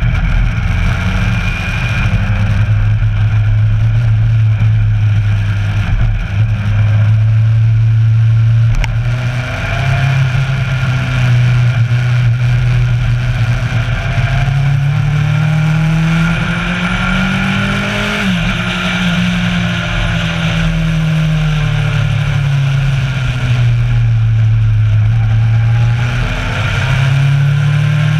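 Kawasaki Versys 1000's inline-four engine pulling on the move, its pitch climbing and easing with the throttle and dropping sharply at a gear change about two-thirds of the way through. Wind and road noise over the engine.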